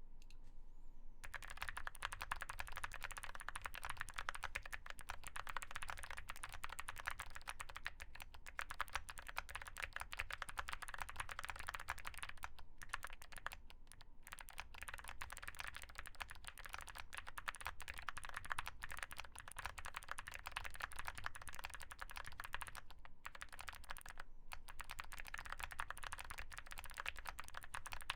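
Fast, continuous typing on a Feker Galaxy80 mechanical keyboard fitted with Gateron Melodic clicky switches and MOA-profile keycaps. Rapid key clicks start about a second in and break off in a few short pauses.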